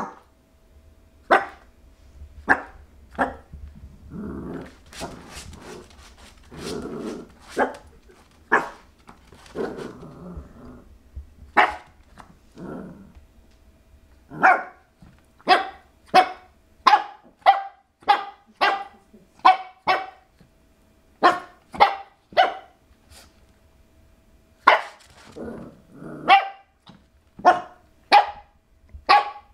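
Shih Tzu puppy barking at its own reflection in a mirror: short, sharp barks with low growls in between, turning into a fast, steady run of barks in the second half.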